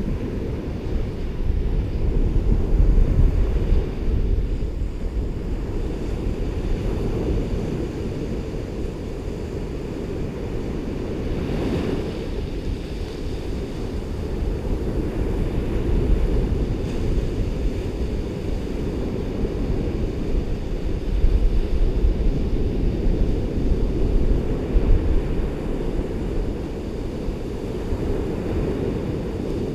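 Ocean surf washing steadily onto a beach, with low wind rumble on the microphone that swells in gusts near the start and again about two-thirds of the way through.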